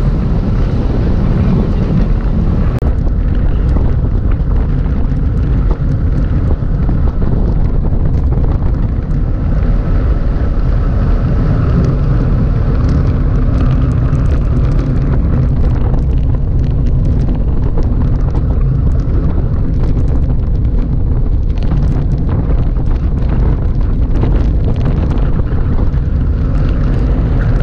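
Wind buffeting the microphone of an action camera on a moving road bike: a loud, steady low rumble.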